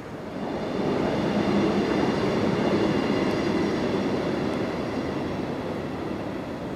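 A passing vehicle: a low rumble that swells about a second in and slowly fades, with a faint high whine over it.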